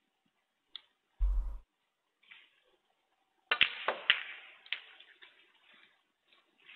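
Snooker balls clacking: the cue strikes the cue ball, which crashes into the pack of reds, giving a quick run of sharp clicks about halfway through that fade as the balls spread. Earlier there is a short, heavy low thump.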